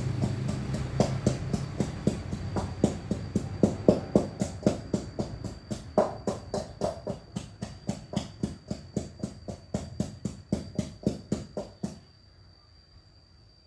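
Background music with a steady drum beat, about four beats a second, which stops abruptly about twelve seconds in. A faint, steady, high-pitched tone continues underneath.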